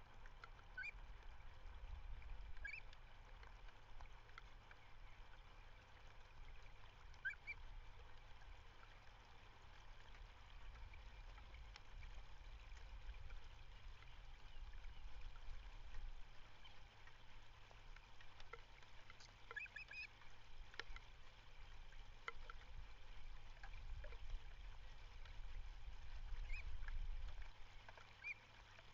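Wind rumbling on an outdoor microphone, with short, scattered bird calls throughout, including a cluster of calls about twenty seconds in.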